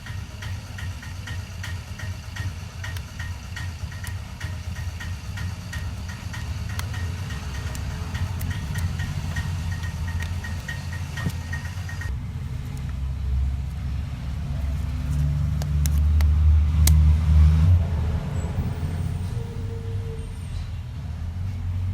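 A low, engine-like rumble that swells louder a little past the middle, with a faint fast ticking, about three ticks a second, that stops about halfway through.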